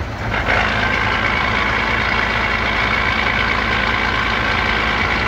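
MAN truck diesel idling with its ZF 16S181 gearbox drumming: a steady rattle that sets in about half a second in as the revs settle back to idle. The noise comes only at idle and goes quiet with the clutch pressed or a little throttle, which the mechanics take for harmless idle rattle rather than a fault in the rebuilt box.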